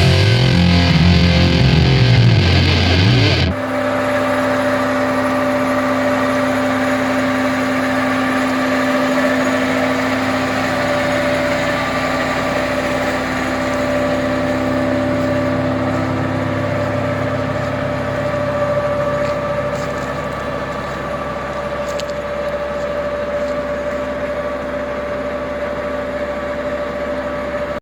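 Rock music cuts off abruptly about three and a half seconds in. After it, an excavator's engine runs steadily with a constant hum, easing slightly in loudness near the end.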